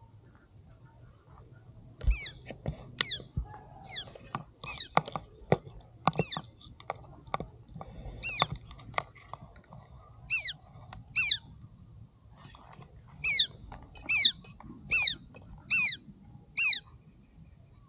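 A small bird calling a dozen or more times: short, shrill, downward-slurred calls, in runs from about two seconds in to near the end. Soft thumps and rustles sound under the first half of the calls.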